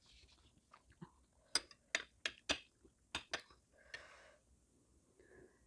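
Metal fork and spoon clicking against a ceramic plate while picking up silkworm pupae: a quick run of about six light clinks, then a short scrape.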